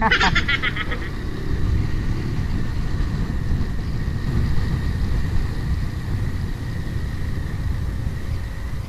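Bajaj Rouser 180 motorcycle on the move: a steady rumble of engine and road noise, with wind buffeting the rider's microphone.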